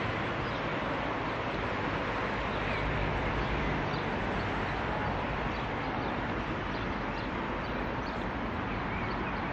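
Steady outdoor background noise with faint, scattered bird chirps.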